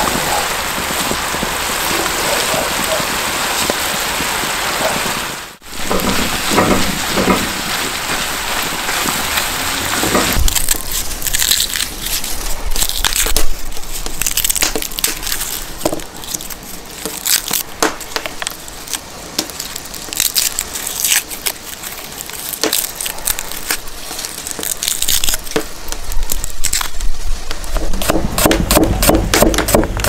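Sliced onions sizzling in a hot, steaming pan of carrots for the first five seconds or so. After a break come small clicks and crackles of a knife peeling garlic cloves on a wooden board. Near the end a cleaver chops garlic with quick, repeated knocks on the board.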